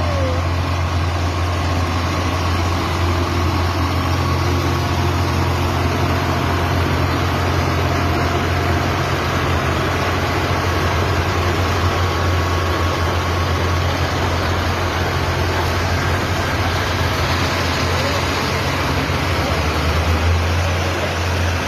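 Heavy diesel truck engine running steadily with a low, even drone that holds the same pitch throughout, swelling slightly about twenty seconds in.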